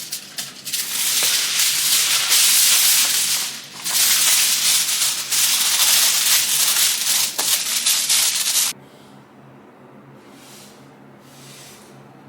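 Paint roller rolling paint over the ceiling: a loud, rough hiss in long strokes with a brief pause near four seconds. About nine seconds in it drops to faint, softer strokes.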